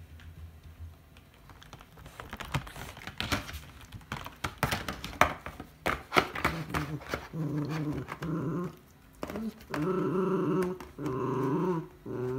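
Empty cardboard ice-cream bar box scraping and crackling in quick clicks as a miniature schnauzer paws and noses at it. In the second half the dog growls in about four short bouts of roughly a second each.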